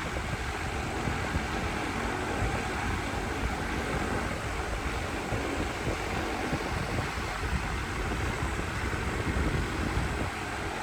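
Unitedstar 24-inch high-speed ceiling fan running on a high speed, a steady loud rush of air from the blades with an uneven low rumble.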